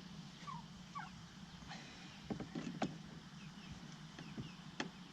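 Scattered faint clicks and knocks with a couple of short squeaks: plastic car door trim parts being handled and fitted during reassembly.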